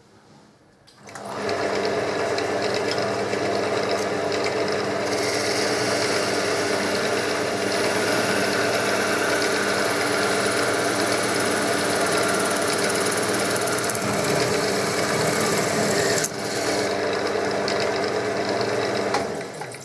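Wood lathe motor running steadily, starting about a second in and stopping near the end. Through the middle stretch a higher rasping hiss of something working the spinning chestnut wood joins in.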